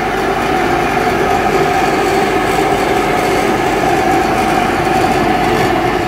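Centrifugal extraction fan (250 W, rated at 1700 m³/h) running at full speed: a steady rush of air with a steady hum in it.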